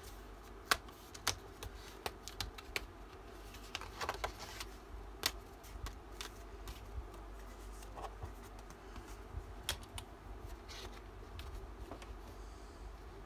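Paper die-cuts and a sticker sheet being handled and laid on a cutting mat: rustling paper with scattered light taps and clicks at irregular intervals.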